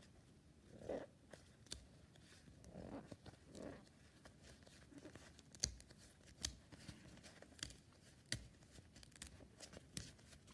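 Faint rustling and light clicks of trading cards being handled and flipped through, with a little soft crinkling.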